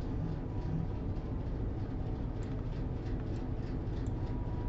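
Steady low background hum of room and microphone noise, with a few faint clicks.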